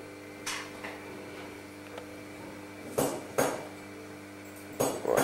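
Hard objects clinking and knocking together: a couple of light clinks, then two louder pairs about three and five seconds in, over a steady machine hum.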